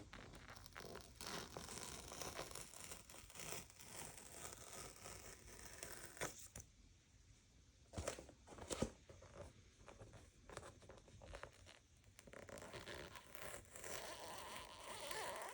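Unboxing packaging being handled: faint paper and plastic rustling and tearing, with a few short sharp clicks near the middle.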